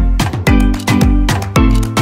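Upbeat background music with a steady beat: sharp percussion hits about twice a second over sliding bass notes.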